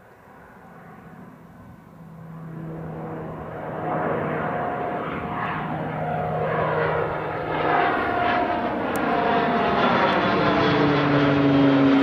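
Grumman S-2T air tanker's twin turboprop engines (Garrett TPE331s) and propellers running, faint at first and growing steadily louder from about two seconds in as the aircraft banks around and approaches.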